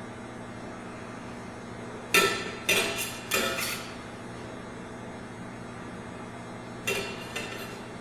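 A metal utensil clinking against a ceramic serving dish: a quick run of about four clinks a couple of seconds in, then two more near the end, each with a short ring, over a steady low hum.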